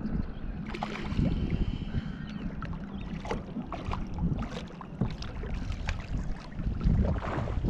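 Water slapping and lapping against a small boat's hull, with irregular splashes from a hooked fish thrashing at the surface beside the boat. The splashing is loudest near the end.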